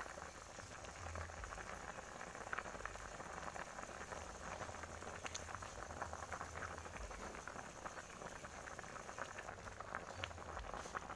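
Pot of thick coconut-milk broth with chicken offal and feet boiling hard: a steady bubbling with many small pops.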